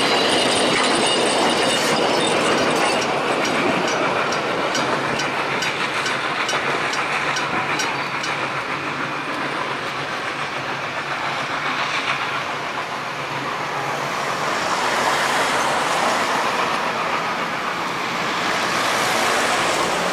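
Narrow-gauge passenger carriages rolling past slowly. The wheels squeal high in the first few seconds and click over the rail joints about three times a second, under a steady rolling rumble.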